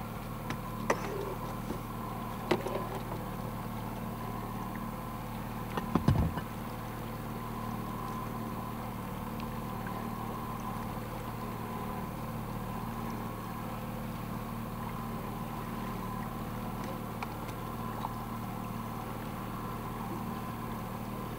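Boat's outboard motor running at a steady idle, with a few light knocks against the boat and one louder thump about six seconds in.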